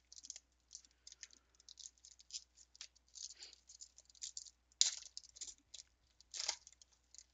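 A trading-card pack wrapper being torn open and the cards inside handled: a faint, irregular run of crinkles and rustles, with louder crackles about five and six and a half seconds in.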